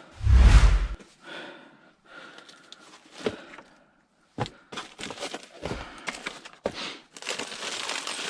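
Rummaging through plumbing parts and packaging: a heavy thump, then scattered clicks and knocks of parts being handled, and a steady crinkling rustle of packaging from about seven seconds in.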